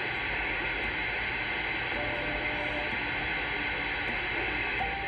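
Galaxy DX-2517 CB base station's speaker putting out steady receiver static on the 11-metre sideband channel, with faint steady whistles of distant carriers coming and going about halfway through and near the end.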